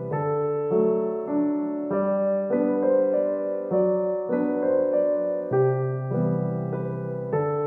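Background music: a gentle piano or electric-piano piece, chords and a bass line changing about every half second to second.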